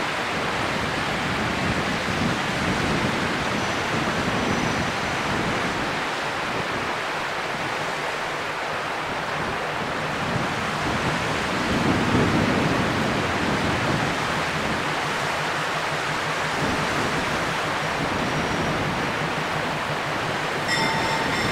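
A steady rushing noise fills the air, while a diesel locomotive's engine comes in low underneath during the second half as the locomotive approaches.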